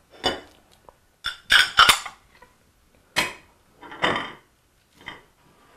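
Plates, bowls and utensils clinking and clattering as they are moved and set down on a kitchen counter: about five separate clatters, the loudest about a second and a half in.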